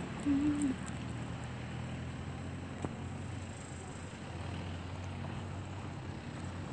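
Steady outdoor rumble of road traffic with wind on the phone's microphone. A short single tone sounds about half a second in, and a small click comes near the middle.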